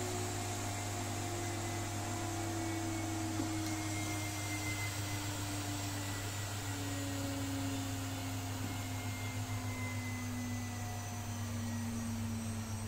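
VFD-driven spindle motor of a desktop CNC engraver winding down: its whine falls slowly and steadily in pitch, over a steady electrical hum.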